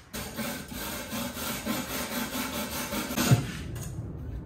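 Slag being chipped and scraped off a fresh weld on a steel plate with a hand tool: quick, repeated scraping strokes, with one sharper knock about three seconds in.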